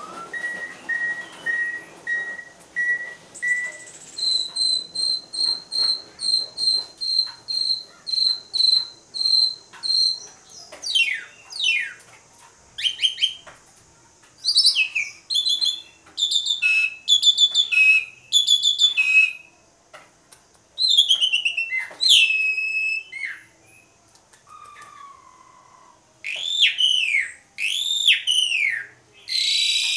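Asian pied starling (jalak suren) singing. It starts with a series of clear whistled notes, about two a second, which jump to a higher pitch about four seconds in. Then comes a varied run of fast down-slurred whistles and chattering phrases.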